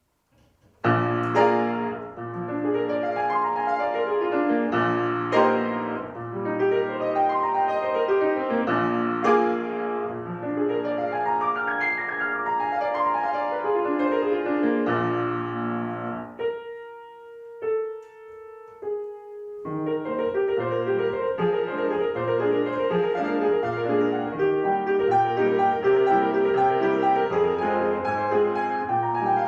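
Solo piano playing a classical piece, starting about a second in. A little past the middle it thins to a few separate held notes, then the full playing picks up again.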